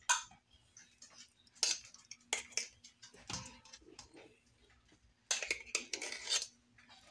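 A metal measuring cup scooping thick whole-milk ricotta from a plastic tub: scattered scrapes and knocks, with a longer stretch of scraping about five seconds in.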